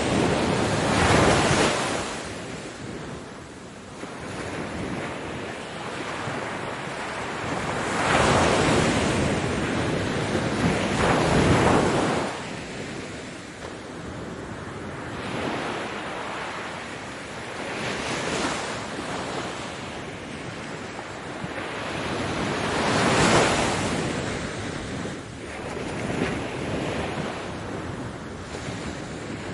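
Ocean waves breaking and washing up on a beach, the surf swelling and falling back in surges every few seconds, with the loudest breakers about a second in, twice in the middle, and once more past two-thirds of the way through.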